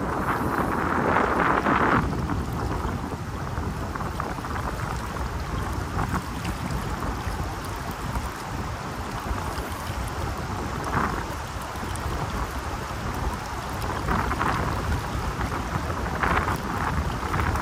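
Gusting wind buffeting the microphone: a steady low rumble with brief louder rushing surges in the first two seconds and again several times near the end.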